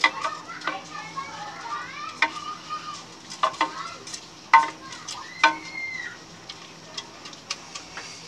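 Wooden spoon stirring spaghetti sauce in an aluminium pot, with sharp knocks of the spoon against the pot about seven times.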